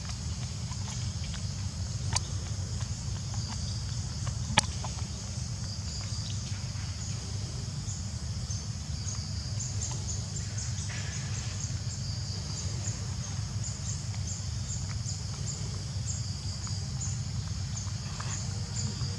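Outdoor ambience: a steady high insect drone with a quick, even run of short high chirps starting about 8 s in, over a steady low rumble. A few sharp clicks stand out, the loudest about four and a half seconds in.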